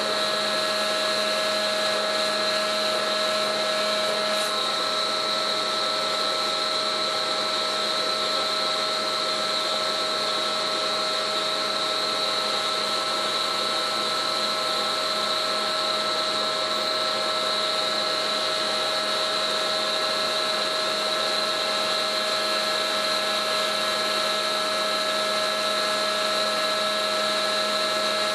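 Hydraulic winch test stand running: the hydraulic pump and motor give a steady whine of several fixed tones over an even hiss.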